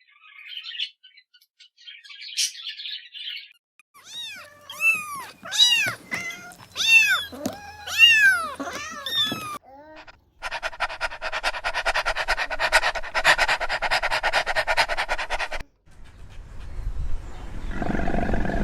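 A series of different animal calls. First come faint high chirps, then a quick run of loud rising-and-falling cries, then a steady buzzing rattle lasting about five seconds.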